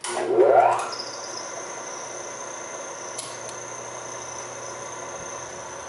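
Singer 16-188 industrial sewing machine's original electric motor starting up with a rising whine in the first second. The machine then runs steadily at speed with a constant high whine, stitching through three layers of denim.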